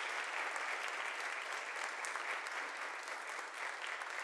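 Church congregation applauding, a dense, steady clapping that eases slightly near the end.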